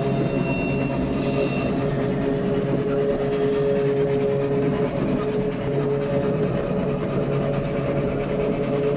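HO-scale model of the Train Jaune's Z 100 electric railcar running, its onboard digital sound decoder playing a steady electric-motor hum with a few held tones through the model's small loudspeaker. A thin high tone sounds over it for about the first two seconds.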